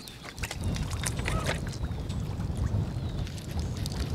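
Wind rumbling on the microphone over water lapping against a boat hull, with small scattered clicks and splashes.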